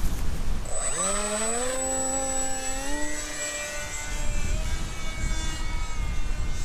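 Mini Talon's electric motor and pusher propeller spinning up with a rising whine about a second in as the plane is hand-launched, then holding a steady buzzing drone that thins out as the plane climbs away.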